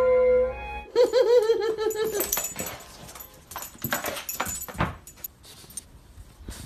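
Dog whining in a quick run of short cries that rise and fall, then a scatter of clicks and knocks.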